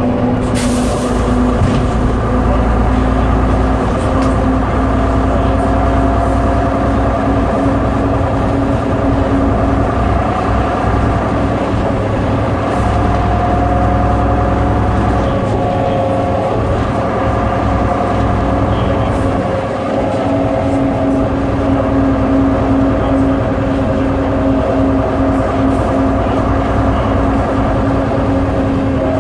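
MCW Metrobus double-decker's diesel engine and driveline, heard from inside the saloon, running steadily with a deep rumble and a whine held at a few steady pitches.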